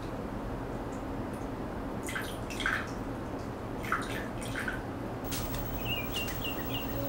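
Water poured from a plastic pitcher into a small glass, heard as a few short trickles and drips, over a low steady hum.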